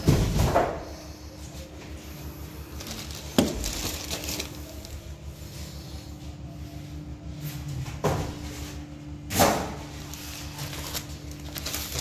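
Handling of a washing machine's accessories sealed in plastic bags: a few short rustles and knocks, the loudest near the start and about three seconds before the end, over a steady low hum.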